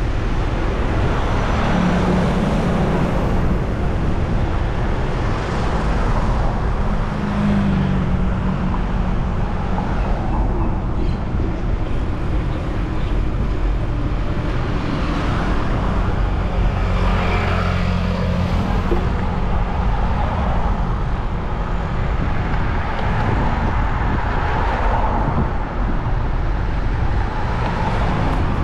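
City road traffic heard from a bicycle: car engines running and passing over a steady rumble of tyres and wind on the microphone, with several vehicles louder as they go by.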